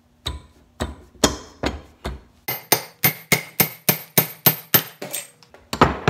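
A run of hammer taps drives a Yamaha YZ125 crankshaft into its crankcase half and its main bearing. The blows are sharp and metallic, about half a second apart at first, then quicker at about four a second, with two last hits near the end until the crank is seated.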